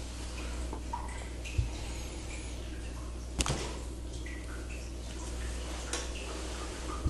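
Chiropractic manipulation: soft rustling of hands working on the body, a low thump about one and a half seconds in, and one sharp crack a little past three seconds in, over a steady low hum.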